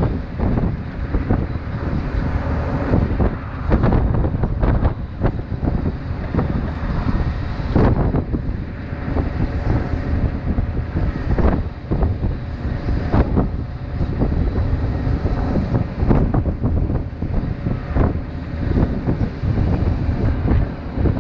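Wind buffeting the microphone over a steady low rumble, with a few faint knocks.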